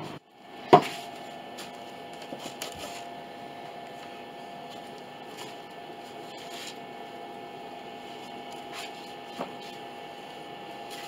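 Steady mechanical hum of workshop room tone, with one sharp knock about a second in and a few light taps soon after.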